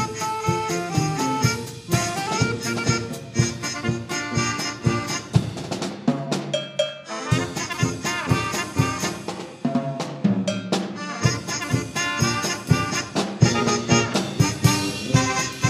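Polka music from a brass band with drums, a fast steady beat, with a short break in the beat about six seconds in.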